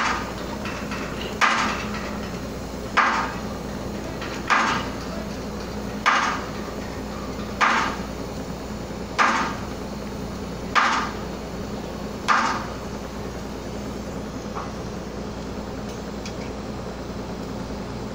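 Hammer blows struck at an even pace, about one every second and a half, nine in all, stopping about twelve seconds in. A steady low mechanical hum runs underneath.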